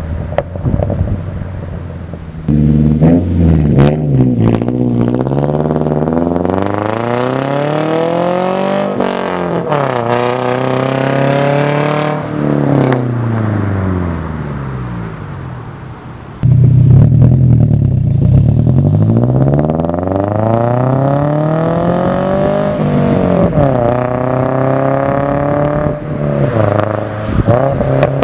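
Exhaust note of a 2013 Subaru Impreza 2.0i's FB20 flat-four engine. The revs climb steadily for several seconds and then fall back, twice, each run starting with a sudden jump in loudness.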